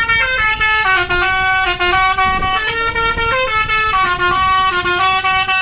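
Bus telolet (basuri) horn playing a melody: several horn tones sounding together as a chord, stepping up and down in pitch every fraction of a second.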